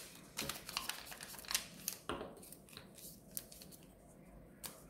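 Folded origami paper rustling and crinkling as it is handled and pressed together during gluing, with short sharp clicks and taps that are thickest in the first three seconds and thin out after that.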